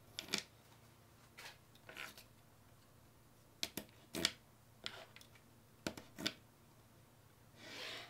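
Small neodymium magnet balls clicking and clacking as slabs of them are set down and snap onto a stack: a string of sharp clicks, often in quick pairs, and a short rubbing scrape near the end.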